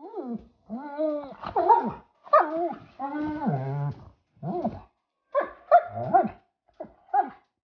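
German Shepherd vocalizing in a string of about ten short calls that rise and fall in pitch, somewhere between whining and grumbling.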